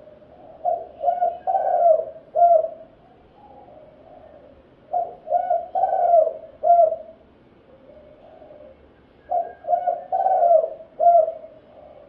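Spotted dove (terkukur) cooing its song: three phrases of about four coos each, every phrase some two seconds long and repeating every four seconds or so.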